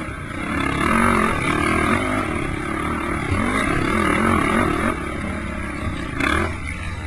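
Honda TRX450R quad's single-cylinder four-stroke engine revving hard under racing load, its pitch climbing and dropping again and again as the rider works the throttle and gears. A steady low rumble of wind runs underneath.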